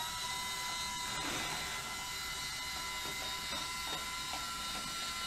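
Two Zemismart M027 smart curtain motors driving along a curtain rod to open the curtains: a steady electric motor whine.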